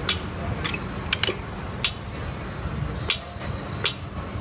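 Sharp metal clinks, about seven at irregular spacing, over a low steady rumble: metal tools and fittings knocking together during conductor jointing work.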